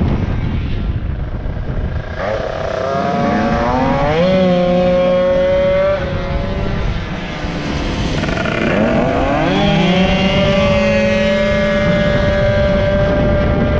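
Racing moped's small two-stroke engine under full throttle. Its revs climb twice, about two seconds in and again past the middle, and then hold at a steady high pitch, with a short easing off between the two.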